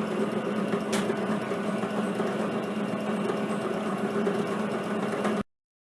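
Drill press running with a diamond-tipped core drill: a steady motor hum with a single click about a second in. The sound cuts off abruptly near the end.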